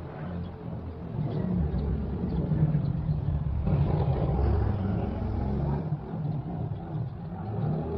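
A motor vehicle's engine running with a steady low rumble, a little louder around the middle.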